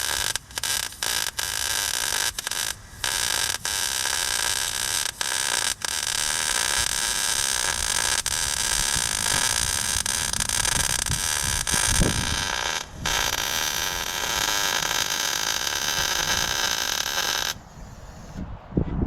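Electric arc welding on steel: the crackling hiss of the arc in several short tack-welding bursts with brief breaks over the first six seconds, then longer continuous runs of several seconds with one break about 13 seconds in, ending shortly before the end.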